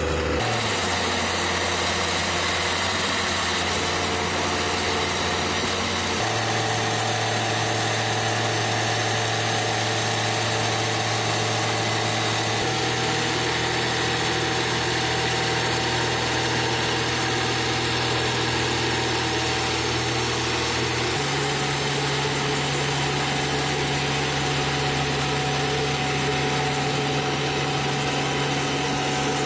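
Heavy machinery engines running steadily with a low hum. The hum jumps abruptly to a new steady pitch about 6, 13 and 21 seconds in.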